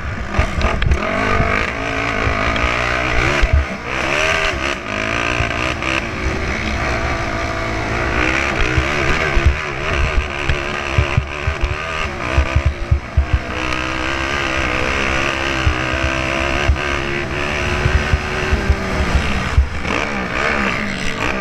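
Honda 450R's single-cylinder four-stroke engine running hard over rough off-road ground, its revs rising and falling with throttle and gear changes, with frequent thumps from the bumps.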